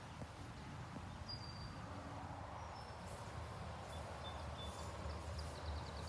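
Quiet outdoor ambience: a steady low rumble with a few faint, short bird chirps and a brief run of high ticks near the end.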